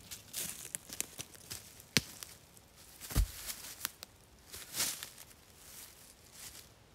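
Footsteps crunching and crackling through dry leaf litter, with a heavy low thud a little over three seconds in as a large flat stone is dropped onto the forest floor. Then leaves rustle as the stone is shifted into place.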